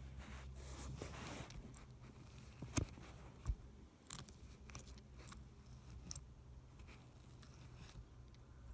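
Hands squishing and poking slime mixed with crunchy sprinkles: scattered crackles and clicks, with a couple of sharper pops about three seconds in.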